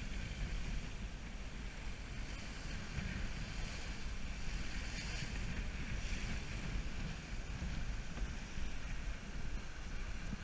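Wind buffeting the microphone and water washing along the hull of a 35-foot sailboat under way, a steady rushing noise.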